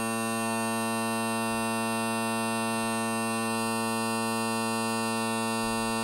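Bagpipe bass and tenor drones sounding together as one steady, unchanging tone. The drones are tuned so that they lock into each other.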